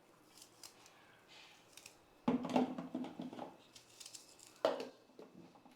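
Light clicks and knocks of a kitchen mixer-grinder jar and lid being handled and set in place, with a louder clatter about two seconds in and a shorter one near the end.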